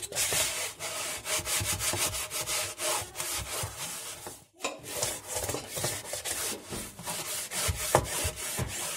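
A brush scrubbing a washing machine's pulsator dusted with detergent powder, in rapid back-and-forth strokes, with a brief pause about halfway through.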